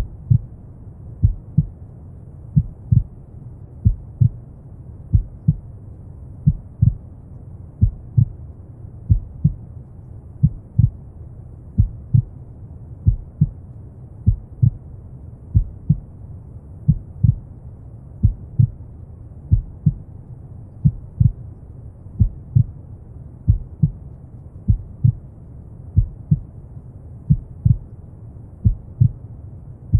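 A slow, steady heartbeat: paired lub-dub thumps a little more than a second apart, over continuous deep brown noise.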